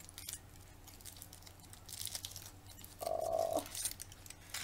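Light crinkling and cracking as a Kinder Surprise egg is unwrapped from its foil and its chocolate shell is broken open, with a short steady hum about three seconds in.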